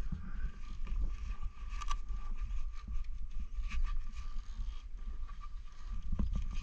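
Rustling and light clicks of motorcycle riding gloves being handled at the handlebars, over a steady low rumble of wind on the microphone.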